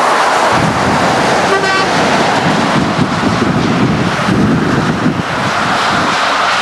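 A lorry and trailer drives past on a highway with a steady rush of engine and tyre noise. A short horn toot sounds about a second and a half in.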